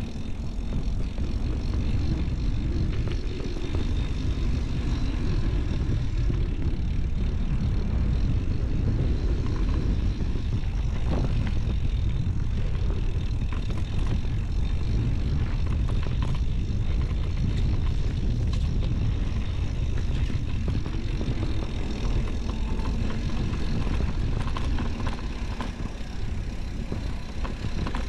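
Steady wind rumble on the camera microphone with the hiss and rattle of a mountain bike's tyres rolling over a dirt single track while riding.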